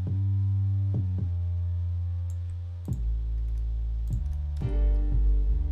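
Synthesized 808 bass sounding several long, low notes one after another, each new note starting with a short pitch slide, heard a note at a time as the notes are edited in the piano roll. There are faint mouse clicks between the notes.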